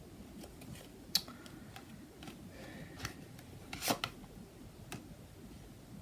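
Tarot cards being handled on a table: soft rubbing and sliding with a few sharp clicks, the loudest about four seconds in.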